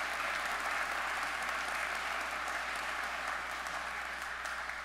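A congregation applauding steadily, beginning to die away near the end.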